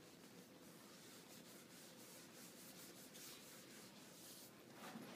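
Faint, repeated rubbing strokes of an eraser wiping writing off a whiteboard.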